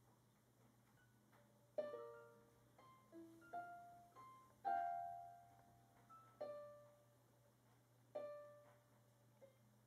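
Electronic keyboard sounding random single notes and small clusters as kittens step on its keys, about a dozen at uneven spacing, each struck and then dying away, the loudest about five seconds in.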